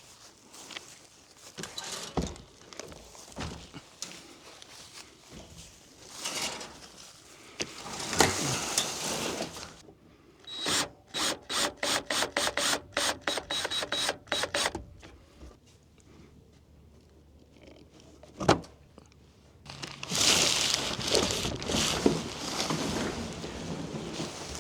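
Hand tools working loose the steel bars of an IBC tank's cage: scattered scrapes and knocks, a quick run of clicks about four a second for some four seconds midway, a single sharp knock, and a longer scraping noise near the end.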